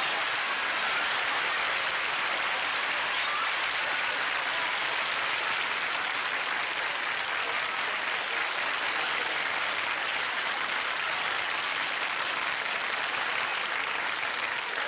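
Studio audience applauding steadily at length, greeting a guest star's entrance.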